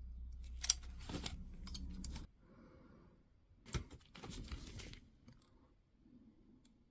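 Close-up handling sounds of a Milwaukee M18 battery pack being worked on: sharp clicks and scratchy rustling of small parts, in two bursts, with a low hum under the first burst that cuts off suddenly about two seconds in.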